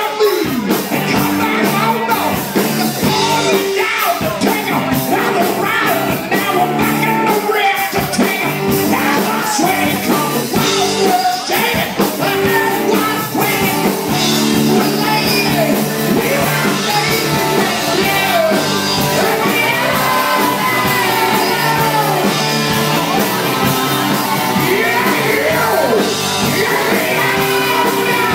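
Live band playing amplified music with a lead singer and drums, loud and continuous.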